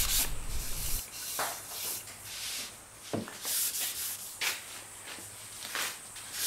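Hand sanding of New Guinea rosewood with 600-grit paper on a sanding block: a run of rasping strokes in the first second, then fainter, scattered single strokes.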